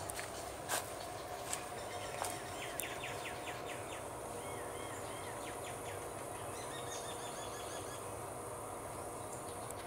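A bird calling runs of quick, falling whistled notes from about three seconds in until near the end, over a steady background hiss and hum. There are a few sharp clicks in the first couple of seconds.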